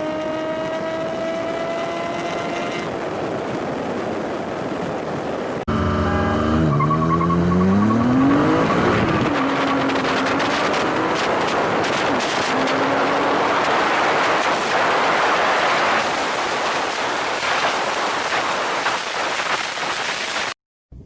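Car engine at full throttle in drag-racing clips, its pitch climbing steadily through a gear under loud wind and road noise. After a sudden cut the pitch drops at a shift and climbs again, and the sound cuts off abruptly near the end.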